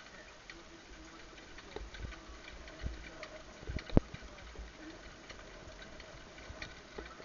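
Horse jogging in harness on a dirt track, heard from the sulky: hoofbeats and harness rattle as a light ticking about twice a second, with a sharp knock about four seconds in.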